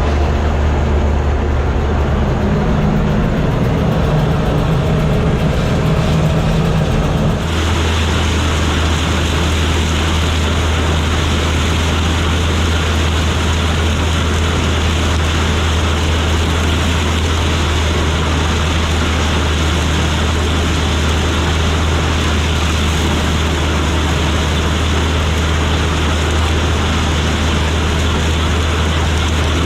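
Gleaner combine harvester running steadily under load. About seven seconds in, the sound changes abruptly to a deeper, steady drone.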